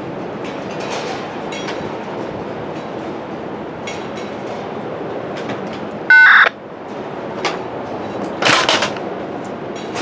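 Strong wind buffeting the microphone over a freight train's cars being switched. About six seconds in comes a short, very loud tone-like burst, and near the end a brief louder hissing burst.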